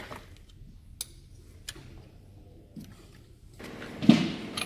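Metal hand-tool work on a motorcycle front axle: a few light metallic clicks of an open-end wrench on the fork's axle clamp bolts, then a louder metallic knock near the end as the front axle is slid through the wheel hub.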